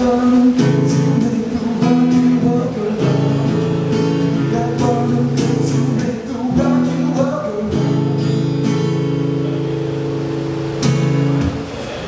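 Steel-string acoustic guitar strummed in rhythm, chords changing every second or two. The chords stop just before the end.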